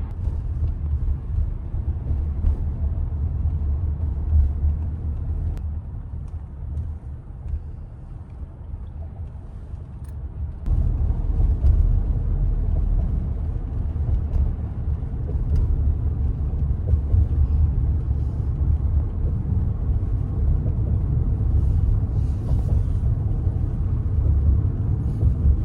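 Low, steady road rumble inside a moving car, with a sudden jump in loudness about ten seconds in.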